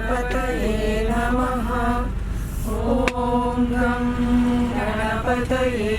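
Background music of a chanted devotional vocal line sung over a steady low drone.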